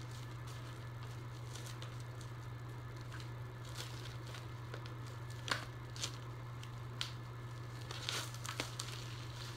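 Plastic shrink wrap crinkling and a cardboard CD gatefold sleeve rustling as it is opened and handled. A few sharp clicks and taps come in the second half, over a steady low hum.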